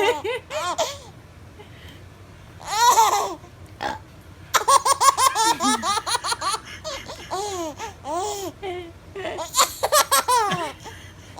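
Six-month-old baby laughing in several bursts of quick repeated laughs, with short quiet gaps between. A short, loud vocal sound about three seconds in comes before the longest burst of laughing.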